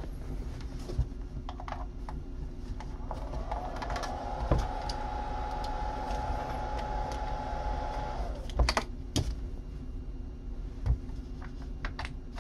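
Clicking and rattling of plastic plug connectors and wire leads being handled and pushed into a Spektrum S2100 smart charger, over a steady low hum. In the middle a whine rises, holds for about four seconds, then stops.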